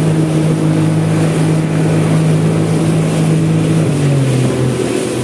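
Yamaha 60 hp two-stroke outboard motor running steadily under way, over the wash of water and wind. About four seconds in the engine note dips lower for a moment, then climbs back.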